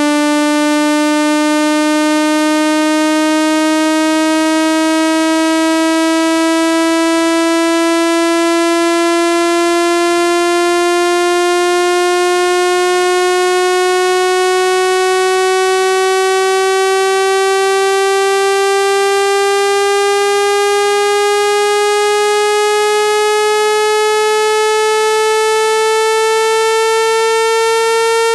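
Electronically generated speaker-cleaning tone: a single buzzy tone, rich in overtones, held at a constant loud level while its pitch climbs slowly and steadily. It is meant to vibrate a phone speaker so that water and dust are shaken out.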